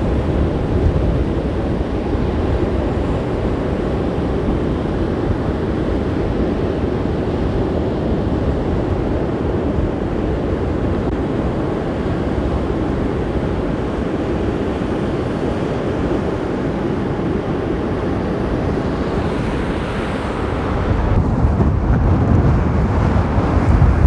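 Storm surf breaking in rows on a sandy beach in a steady, dense rush of water, with strong wind blowing across the microphone. The low rumble of the wind on the microphone grows louder over the last few seconds.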